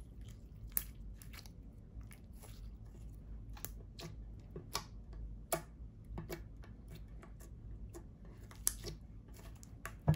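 Clear glitter slime being stretched, folded and pressed by hand, giving irregular sticky clicks and pops, a few of them sharper and louder.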